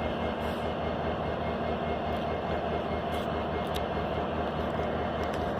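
An idling engine running steadily, a constant low hum with a steady tone above it and no change in speed.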